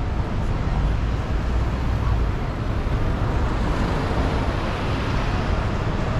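Steady city road traffic: passing cars and buses running, with a deep rumble that is heavier in the first couple of seconds.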